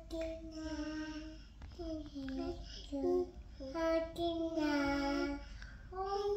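A young child singing a slow tune, holding some notes for about a second.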